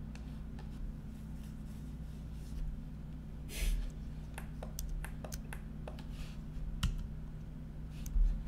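Scattered clicks of a computer mouse and keyboard, with a brief rustle a little before halfway and a low thump near the end, over a steady low electrical hum.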